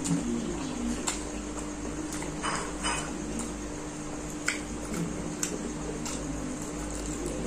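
Close-up eating sounds: chewing, with scattered light clicks and scrapes of wooden chopsticks against the food and wooden board as a fried egg is picked up and bitten into, over a faint steady hum.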